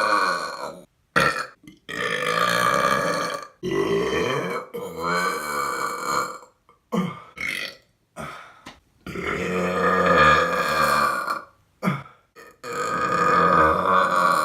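Men belching loudly, one long burp after another from different clips, several lasting two to three seconds, with a few short burps and abrupt silent gaps between them.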